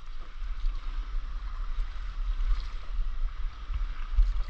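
Stand-up paddleboard paddling on calm sea: light water sloshing and lapping as the paddle dips, over a steady low wind rumble on the microphone.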